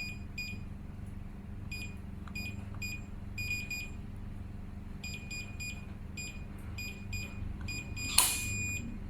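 Keypad of a Kerong Bluetooth electronic lock beeping once for each key as a one-time password is entered, over a dozen short beeps. About eight seconds in comes a brief burst of noise followed by one longer beep as the code is accepted.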